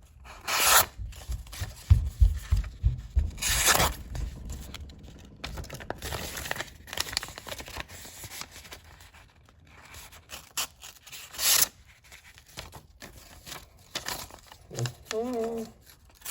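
Folding-knife blade slicing through paper in a sharpness test: a series of short tearing cuts a few seconds apart, with some low handling bumps.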